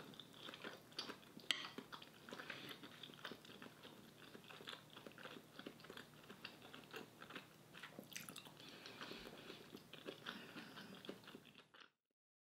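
Faint close-up chewing of a mouthful of rice-flour apple crepe, with scattered small clicks; it stops abruptly near the end.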